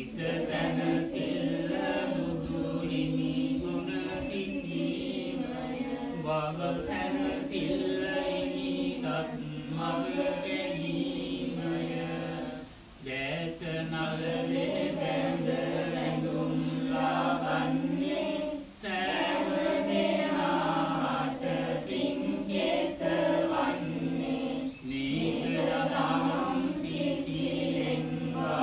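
A group of voices chanting a Sinhala Buddhist devotional verse together in unison. The chant runs in long, held phrases with brief pauses for breath between them, about every six seconds.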